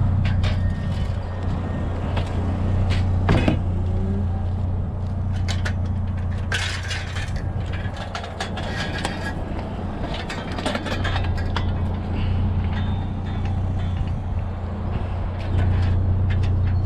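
GMC Sonoma pickup truck running with a steady low drone, with many sharp rattles and clicks over it.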